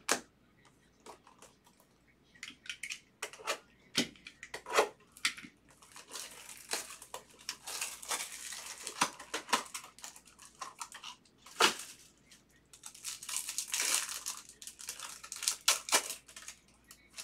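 Crinkling and tearing of a foil trading-card pack wrapper, in two longer stretches, amid sharp clicks and taps of cards handled in plastic sleeves.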